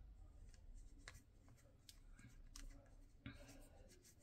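Near silence, with the faint sound of a paintbrush working watercolour on thin Tomoe River paper: a few light ticks and a soft swish about three seconds in.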